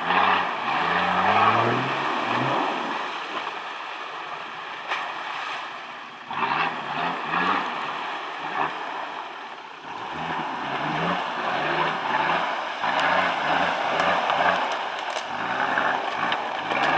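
Nissan Patrol 2.8 TD's straight-six turbodiesel revving up and down in repeated bursts as the 4x4 is driven hard off-road, with a loud rushing noise over it. The engine eases off for a couple of seconds in the middle, then revs hard again.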